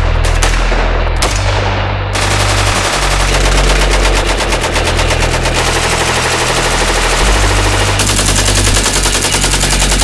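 Rifle gunfire: single shots in quick succession, then continuous rapid fire from about two seconds in until near the end, over a low, steady bass drone.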